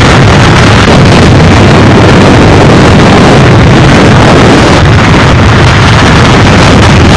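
Hurricane-force wind blowing with driving rain: a loud, unbroken rushing noise with a deep rumble underneath.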